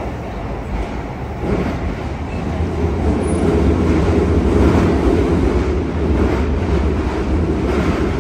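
Yokohama Municipal Subway 4000-series train running through a tunnel, heard from inside the car: a steady rumble of wheels on rail, growing louder about a second and a half in.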